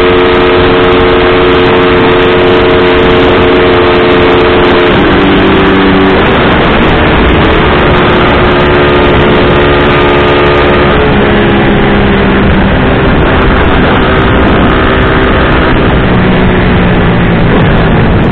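Motorcycle engine running at road speed over a steady rush of wind noise. The engine note holds steady, then drops about five seconds in and shifts pitch in steps a few more times.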